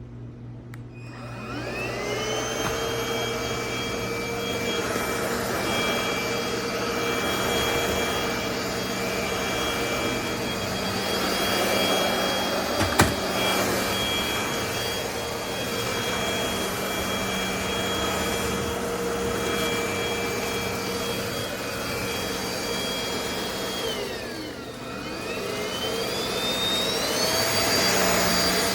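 NADALY cordless stick vacuum motor spinning up about a second in, then running with a steady high whine. There is a single sharp knock about halfway through. Near the end the motor winds down and spins back up to a higher pitch.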